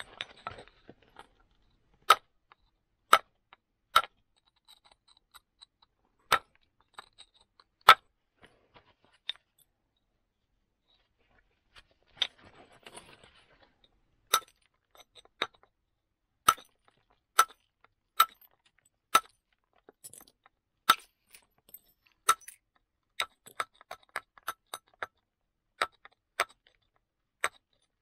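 Wooden billet striking a moose-antler punch set on a flint axe blank: indirect percussion to shape a square flint axe. Sharp clinking knocks about one a second, with a break of a couple of seconds near the middle filled by a short scraping rustle.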